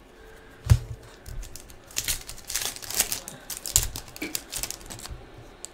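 Foil trading-card pack wrapper crinkling and cards being handled: a run of quick crackles and clicks, with one sharp knock under a second in.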